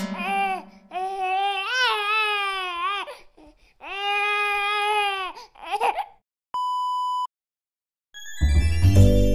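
A dubbed-in crying sound effect: two long wails like a baby crying, the pitch rising and falling. Then a short steady test-tone beep, a second of silence, and music starting near the end.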